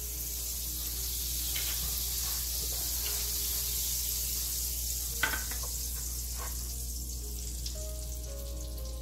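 Butter sizzling on the hot plates of a waffle iron as it is spread, a steady hiss, with batter going onto the iron near the end. There is one sharp click about five seconds in.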